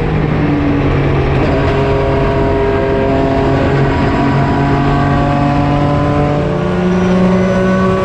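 Porsche 996 GT3 RSR's flat-six racing engine running hard at steady revs, its pitch stepping up about six and a half seconds in.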